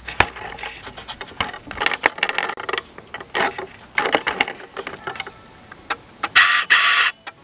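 Handling noise from a hand-carried camera: irregular light clicks and knocks, with a brief rustling scrape near the end.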